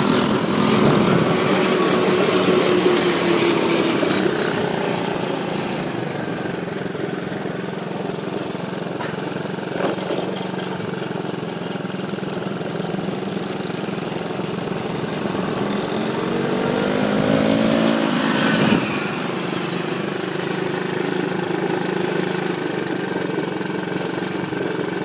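Mini ATV's small engine running steadily. It revs up, rising in pitch for a couple of seconds about two-thirds of the way in, then drops back sharply.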